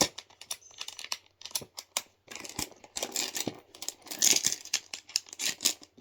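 Small doors and latches of a lock-and-door fidget toy being worked open and shut: irregular clicks and knocks with short handling rustles in between.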